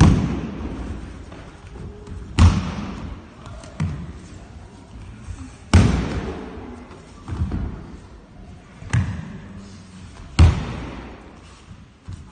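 Bodies thrown down onto padded mats: four heavy thuds a few seconds apart with several lighter ones between, each echoing in a large hall.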